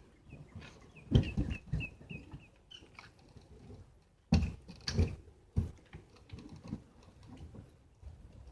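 Heavy clunks and thuds from dock sections being shifted into place, in two clusters of three knocks each. A small bird chirps repeatedly at a steady pace through the first few seconds.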